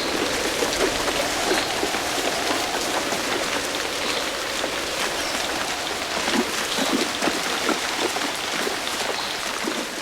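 Steady heavy rain pattering on a hard surface, a dense, even patter of many drops.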